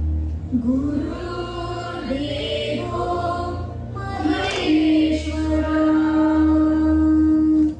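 A song with a choir of voices singing over a steady low bass, with one sung note held for about three seconds in the second half.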